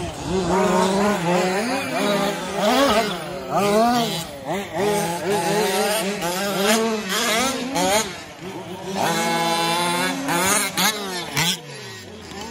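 Several 1/5-scale RC trucks' small two-stroke petrol engines running at once, revving up and dropping back again and again as the trucks race around a dirt track.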